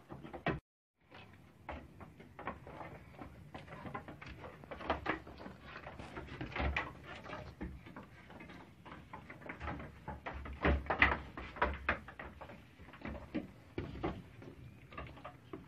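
Irregular light knocks and scuffs on wooden boards, as goats move about on the slatted wooden floor of their pen. The sound cuts out briefly just under a second in.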